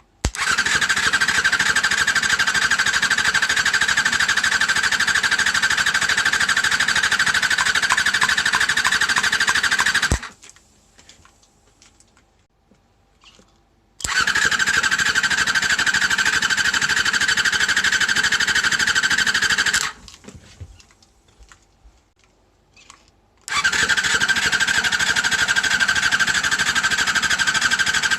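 Honda MC23 Jade's MC14E 250 cc inline-four engine being cranked on its electric starter for a compression test: three spells of steady cranking, about ten, six and five seconds long, each stopping abruptly, with short pauses between.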